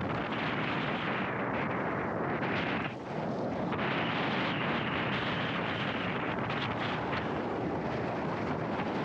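Wind buffeting the microphone: a steady, dense rushing noise that eases briefly about three seconds in.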